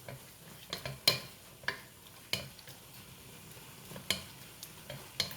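Spoon stirring a ground beef, rice and tomato mixture in a skillet, scraping and knocking against the pan about seven times at uneven intervals, over a faint sizzle.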